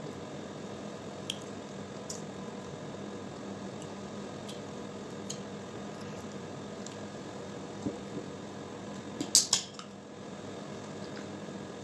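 Cooked crab being picked apart and eaten by hand: scattered small clicks and cracks of shell, with a cluster of louder sharp cracks about nine seconds in, over a steady hum.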